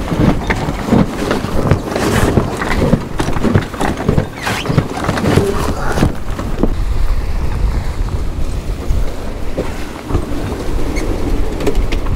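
Strong wind of about 32 knots and heavy breaking seas rushing past a small sailing yacht, with wind buffeting the microphone. Over the first half comes a run of knocks and rattles while the headsail is furled in; after that the rushing goes on steadier.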